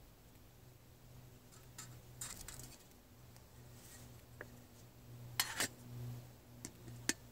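Metal camp cookware clinking: a spoon scraping and tapping in a metal mug and a metal lid being handled, in scattered clinks, the loudest a quick cluster about five and a half seconds in.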